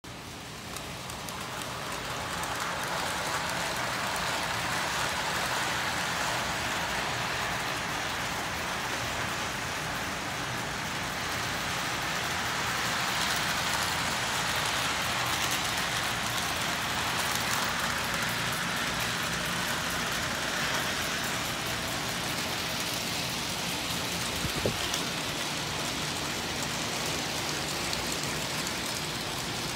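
O gauge model train running on its track: a steady rolling rattle of metal wheels on rail with motor hum, swelling louder through the middle and easing again. A single sharp click about 25 seconds in.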